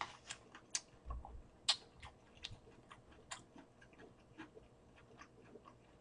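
Close-miked chewing of a burger: soft, irregular wet mouth clicks, a dozen or so scattered through, with no steady rhythm.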